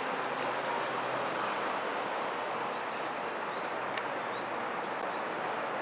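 Insects, likely crickets, trilling outdoors in one steady high-pitched tone over a constant background hiss.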